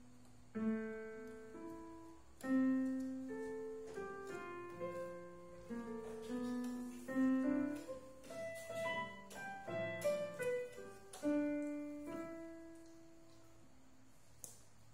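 Portable electronic keyboard in a piano voice, its keys pressed at random by a baby monkey: scattered single notes and small clusters, each ringing and fading, with irregular gaps and a pause of about two seconds near the end.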